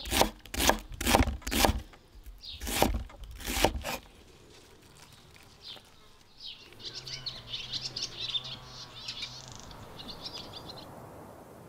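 Chef's knife chopping a red onion on a wooden cutting board, sharp knocks about two a second, then a few more near three and four seconds in. After a quiet gap, birds chirp for several seconds.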